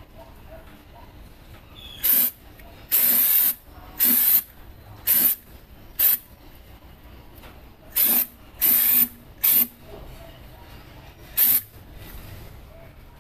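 Aerosol can of undercoating spraying in short hissing bursts, about nine of them, each under a second long, starting about two seconds in.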